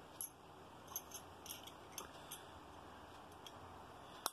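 Faint light clicks and taps of a small ceramic box and the ring inside it being handled, a few in quick succession during the first half and a sharper click near the end.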